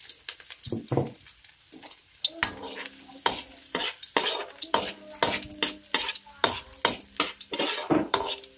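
Metal ladle stirring garlic in a wok, scraping and knocking against the pan in quick irregular strokes over a light sizzle, as the garlic is sautéed in hot oil.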